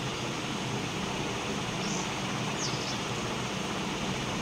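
Steady background room noise: an even hiss with a low hum underneath and no clear events.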